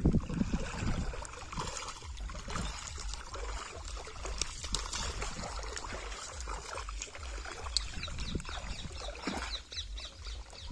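River water trickling over a steady low rumble, with a few short high chirps near the end.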